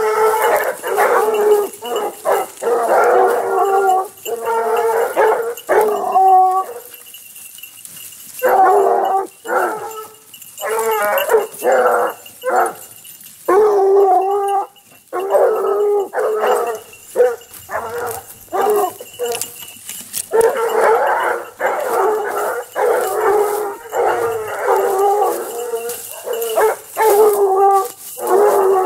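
A pack of Grands Bassets Bleus hounds giving tongue together on the hunt, many baying and howling voices overlapping. The cry comes in runs of a few seconds, broken by brief lulls.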